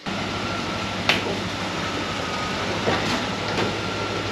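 Jeep CJ's swapped-in LS1 V8 engine idling steadily, with a few short knocks over it, the sharpest about a second in.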